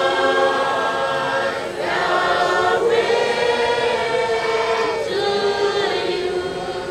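A large group of voices singing together in slow, drawn-out phrases, with short breaks about two seconds in and again about five seconds in.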